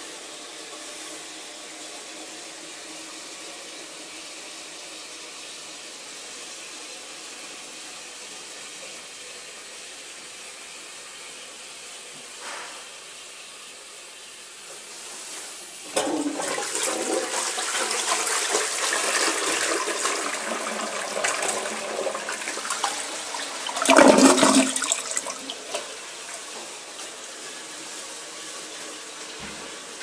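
Lecico Atlas toilet: a steady, quiet trickle of water, then about halfway through the wall-mounted flush lever is pressed and the flush starts suddenly and rushes through the pan. The flush is loudest in a gurgling surge about eight seconds later as the bowl empties, then settles to a quieter running of refill water.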